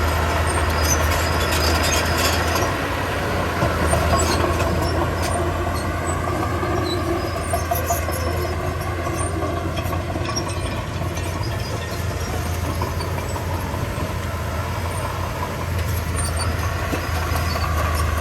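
Komatsu D31P bulldozer's diesel engine running steadily under load, its note rising and falling slightly. Scattered metallic clicks and clanks, heaviest in the first few seconds, are typical of the crawler tracks and the stone being pushed.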